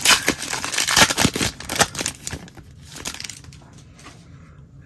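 A 2019 Donruss Racing trading card pack's wrapper being torn open and crinkled in the hands, a busy crackling for the first two seconds or so, then dying down to quiet handling.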